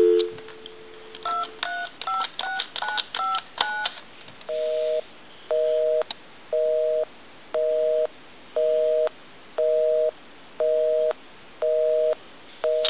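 Dial tone cutting off, then the duck telephone's touch-tone keypad dialing seven digits, each a short two-tone beep. A busy signal follows, a two-note tone switching on and off about once a second: the number dialed is busy.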